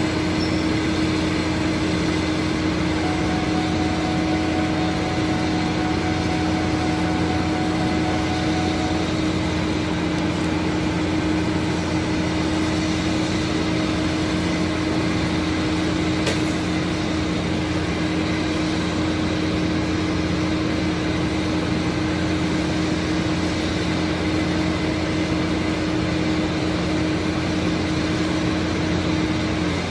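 Heavy diesel engine of rail-laying equipment idling steadily, a constant drone with a steady low hum.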